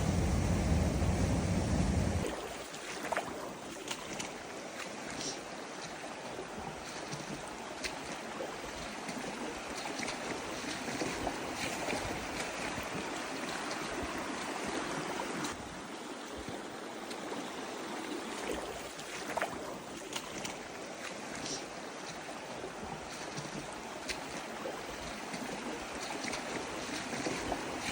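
Creek water rushing and splashing steadily, with faint scattered ticks. A heavy low rumble under the water cuts off suddenly about two seconds in.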